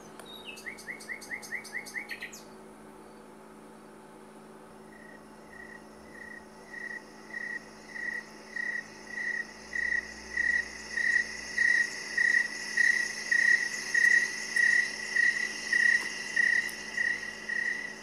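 A quick run of about eight rising chirps at the start. After a short lull, a cricket chirps steadily about one and a half times a second, growing louder, over a faint high insect hiss: nighttime ambience.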